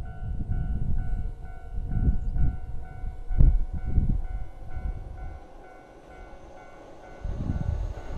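Japanese level-crossing warning bell dinging over and over, about two and a half strikes a second, over low rumbling buffeting, with one sharp knock about three and a half seconds in.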